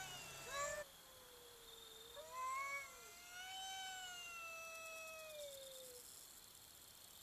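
Domestic cat yowling: a short call at the start, another brief one about two seconds in, then a long, wavering caterwaul of about three seconds that sags in pitch as it ends. Drawn-out yowling of this kind is typical of a cat squaring up to another cat.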